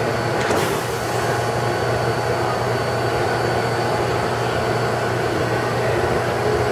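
R160B subway car doors slide shut with a brief clunk about half a second in. The stopped train's air conditioning and electrical equipment then run with a steady hum.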